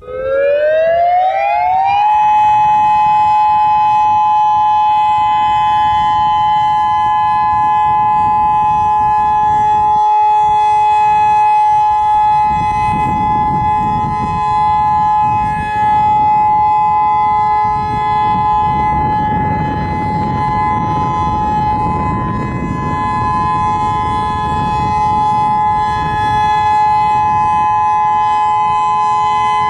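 Federal Signal EOWS 612 electronic outdoor warning siren sounding its steady Alert signal during a test. The tone starts, glides up over about two seconds, then holds as a steady, loud chord of two close pitches.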